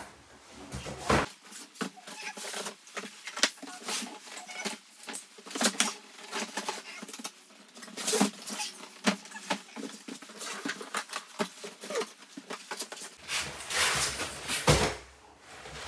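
Cardboard boxes being lifted out of a large carton and set down, with irregular scraping, rustling and knocks of cardboard on cardboard. The loudest knocks come near the end.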